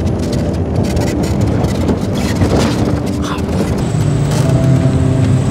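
A 4x4 off-road vehicle's engine running as it drives along a dirt track.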